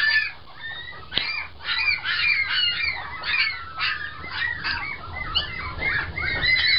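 A litter of newborn puppies squeaking and whining all together: many short, high-pitched squeaks overlapping one another, loud and without a break.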